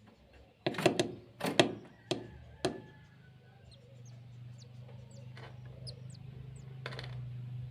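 Four or five sharp knocks in quick succession, then faint, short high bird chirps over a steady low hum.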